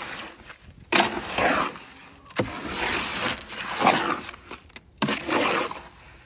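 Hoe scraping and churning dry concrete mix in a steel wheelbarrow. There are about four strokes, each starting sharply and trailing off in a gritty scrape.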